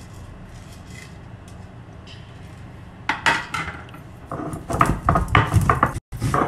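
Stone roller of an ammi (flat grinding stone) knocking and scraping over black peppercorns and fennel seeds to crush them for a masala paste. Starts about three seconds in as a few knocks, then becomes a fast, louder run of grinding strokes.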